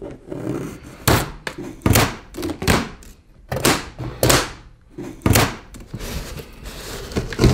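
Plastic packing straps around a large cardboard treadmill box being cut with scissors, the cut straps snapping loose against the cardboard: about six sharp snaps and thunks, with rustling of the strap and box between them.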